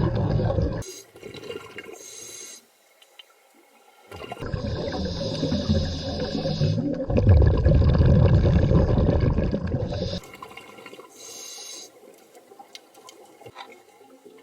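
Scuba diver breathing through a regulator underwater: a long bubbling exhale, alternating with shorter, quieter inhales through the regulator.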